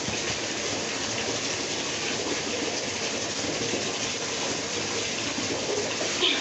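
Bathtub tap running steadily, water pouring into the tub.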